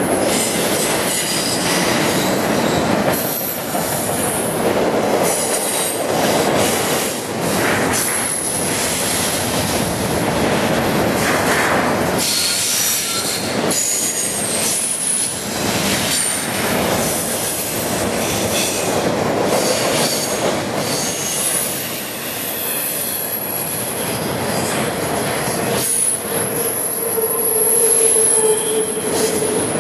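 Double-stack intermodal freight train rolling past close by: a steady rumble and rattle of the container well cars, with high wheel squeals coming and going. A lower squealing tone holds for a few seconds near the end.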